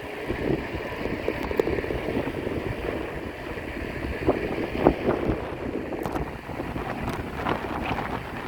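Wind buffeting the microphone: an uneven low rushing noise, with a few faint knocks about four to five seconds in.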